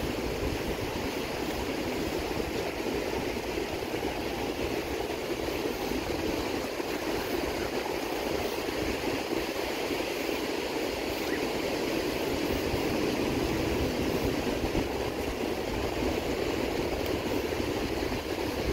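Steady wash of ocean surf breaking and running up a sandy beach, with an uneven low rumble underneath.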